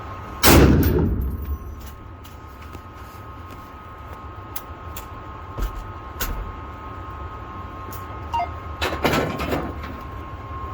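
A single loud rifle shot about half a second in, its report dying away over about a second and a half. It is followed by faint clicks and a second, quieter cluster of sharp reports near the end.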